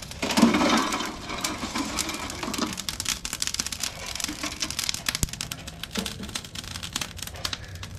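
Burning lump charcoal tipped from a chimney starter into an offset smoker's metal firebox. A rush of tumbling coals about half a second in is followed by a dense run of crackling clicks from the sparking coals.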